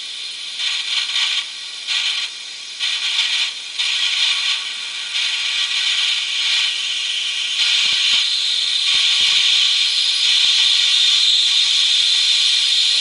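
Homemade nonlinear-inductance generator circuit giving off a high hissing buzz from its coils as it is tuned. The buzz surges and drops irregularly for the first seven or eight seconds, then holds steady and slightly louder.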